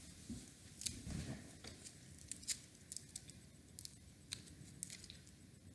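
Faint crinkling and crackling of a small candy wrapper being picked open by hand, the wrapper of a lime Tootsie fruit chew, in short irregular crackles.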